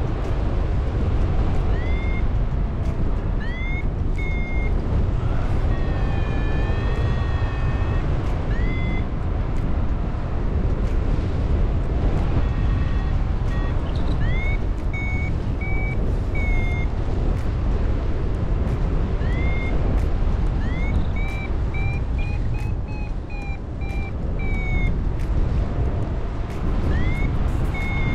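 Wind rushing over the microphone in flight, with a paragliding variometer's tones over it: short chirps that rise and then hold, every second or two, and a few longer wavering tones.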